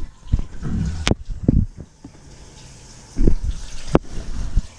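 Handling noise from a handheld shower head and its metal hose being picked up: a few low thumps and two sharp clicks, over a faint hiss of water.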